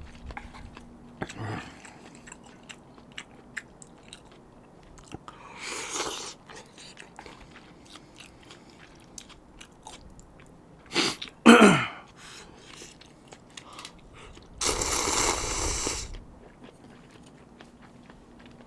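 Close-miked eating of spicy seafood noodles (jjamppong): soft chewing and mouth clicks throughout. Louder slurps come a little after five seconds, twice in quick succession about eleven seconds in, and as a longer slurp around fifteen seconds.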